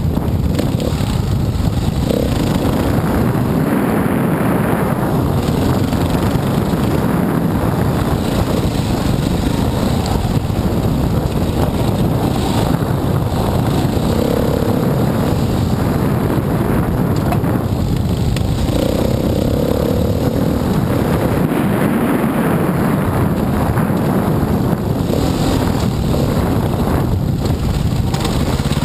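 Dirt bike engine running under throttle while riding a rough forest trail, heard through a helmet camera's microphone.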